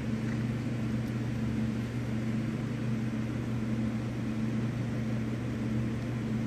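Steady low hum of a running electric motor, with no change in pitch or level.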